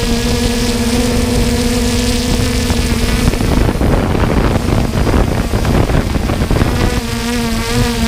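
3DR Solo quadcopter's motors and propellers humming steadily over a heavy rush of air noise. The hum drops away for a few seconds midway, leaving mostly the rushing noise, and comes back near the end.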